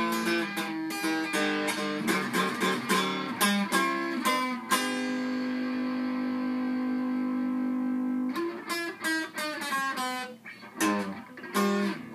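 Archtop guitar played solo, blues picking of single notes and chords. Near the middle one chord is left ringing for about three and a half seconds, then a few more picked phrases follow.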